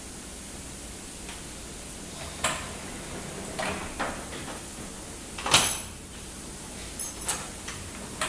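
Sliding door with an auto-locking mortise hook lock, worked by hand. A click comes about two seconds in, then short scraping as the panel slides, then the loudest knock about halfway through as the door shuts. Several sharp lock clicks follow near the end.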